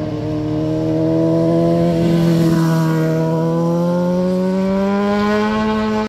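Sport motorcycle engine passing through a hairpin bend: the engine note holds fairly steady, then rises in pitch over the last few seconds as the rider accelerates out of the curve. The sound cuts off abruptly at the end.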